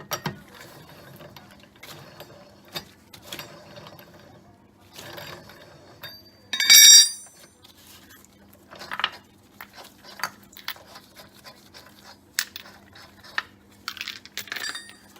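Scattered metal clicks and knocks of hand-tool work on a car wheel, with one loud, brief metallic ringing clang about seven seconds in.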